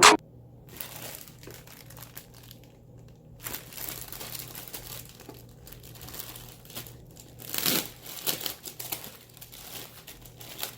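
Packaging crinkling and rustling as it is handled, in irregular bursts, loudest about three-quarters of the way through.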